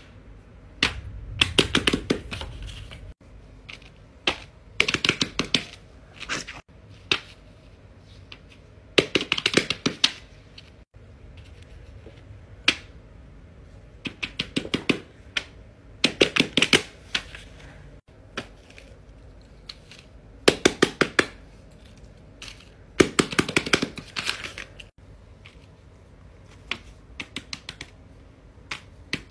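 Fidget toys (a pop-it and squishy stress balls) being tapped and handled: repeated short bursts of quick clicks and taps, several seconds apart.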